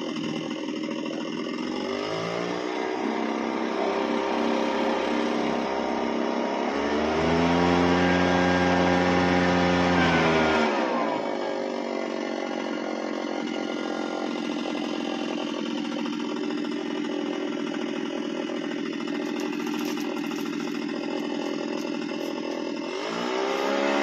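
Two-stroke backpack leaf blower blowing air. Its engine revs up about two seconds in and is loudest at full throttle for about three seconds in the middle. It then drops back to a steady lower speed and revs up again near the end.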